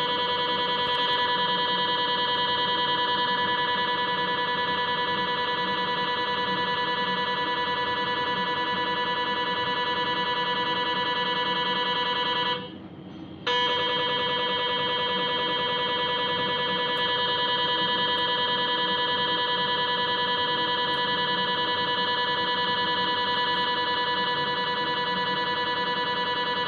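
GE MRI scanner's gradient coils giving off a steady, pitched buzzing tone while acquiring a sagittal LAVA dynamic pelvis sequence. It cuts out for about a second near the middle, then starts again.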